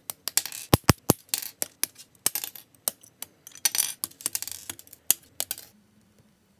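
Hard plastic rattling and sharp clicks from a Bandai SD Gunpla kit's plastic runners being handled, with hobby nippers snipping parts off the runner. A dense run of clicks and rustling stops abruptly about five and a half seconds in.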